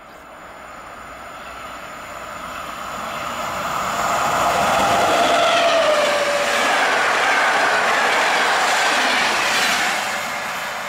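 PKP InterCity passenger train hauled by an EP07 electric locomotive passing at speed. It builds as it approaches, is loudest from about four seconds in as the coaches roll by with steady wheel clatter and a tone that drops in pitch, then eases as the last coach draws away near the end.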